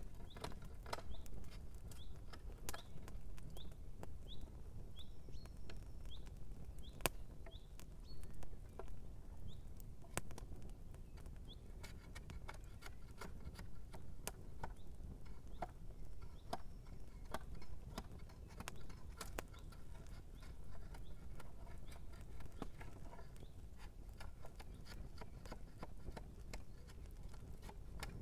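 Campfire crackling and popping as shoes burn, irregular sharp snaps over a steady low rumble. A run of short, high rising chirps repeats about twice a second through the first half.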